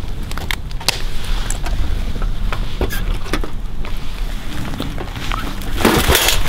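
Wire-mesh live trap with a raccoon inside being handled through leafy undergrowth: scattered sharp clicks and clinks of the wire cage and rustling leaves over a steady low rumble, with a loud rustling burst near the end.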